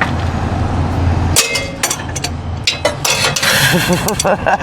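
Metal tools and hardware clinking and knocking several times during sway bar link work, over a low steady hum that stops about a second and a half in.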